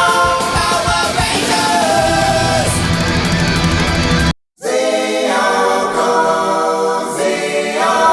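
Rock song with sung vocals and guitar as background music; it cuts out briefly about halfway through and comes back with the bass and drums gone until near the end.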